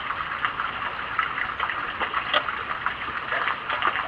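Wood fire in a freshly lit rocket stove burning: a steady rushing draft with frequent crackles and pops, one sharper pop about two and a half seconds in, as the fire starts to catch.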